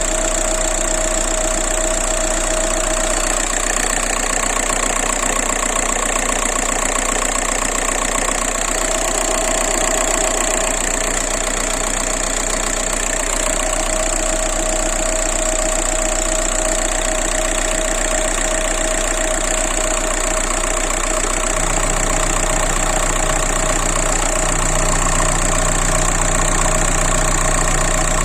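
1.9 TDI diesel engine idling steadily with a knock in it whose cause the owner cannot identify. A deeper steady hum joins about three quarters of the way through.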